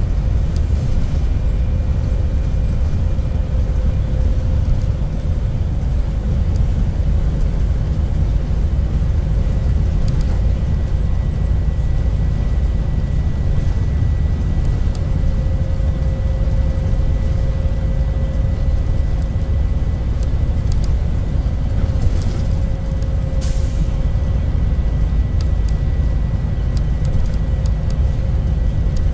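School bus cruising at highway speed, heard inside the cab: a steady low rumble of engine and road noise, with a faint thin whine over it.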